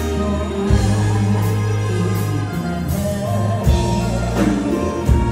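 Band music played over the stage sound system, with sustained bass notes and drum hits.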